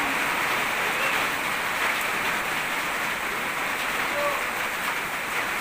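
Steady rain falling on concrete and nearby surfaces, an even hiss with no change in strength.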